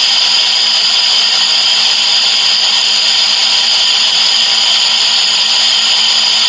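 Electric grain grinder running steadily at full speed, a loud whir with a high steady whine, as it grinds a mix of seeds and herbs.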